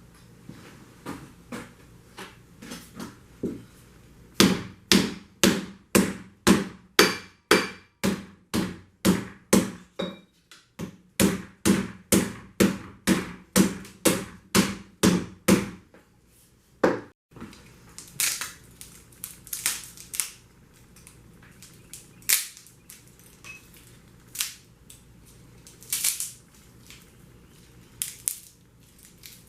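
Hammer striking steel on an anvil in a steady rhythm of about two to three blows a second, each ringing briefly, with a short break midway. After a pause the blows become sparser, sharper and irregular.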